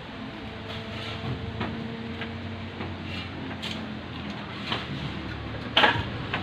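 A long PVC water pipe being lifted and moved about, giving scattered light clicks and scrapes of plastic and one sharper knock near the end. A steady low hum runs underneath.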